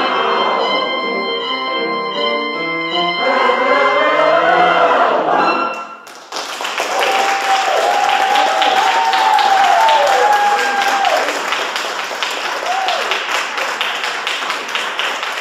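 A mixed-voice choir sings the final phrases of a song, ending on a held chord about six seconds in; then an audience applauds steadily, with a whoop rising and falling over the clapping.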